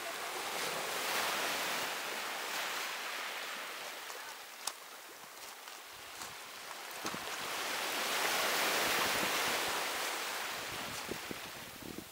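Sea waves washing onto a beach, the surf noise swelling and easing twice. A single sharp click comes a little before halfway.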